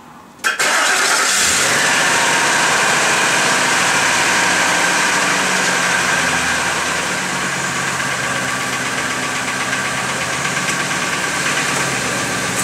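Ford F350 Super Duty pickup's engine starting abruptly about half a second in, then running at a steady idle that eases slightly after several seconds.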